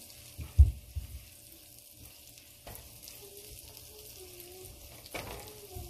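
Butter sizzling and foaming as it melts in a hot pan, stirred with a silicone spatula. A single low thump comes about half a second in.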